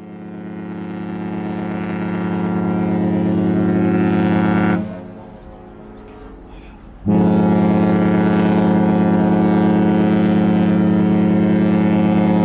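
Silver Nova's ship's horn sounding two long, deep blasts. The first swells up over several seconds and stops about five seconds in; the second starts abruptly about two seconds later and is held steady.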